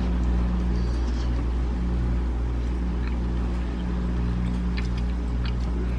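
A steady low hum runs throughout, with a few faint light clicks in the second half.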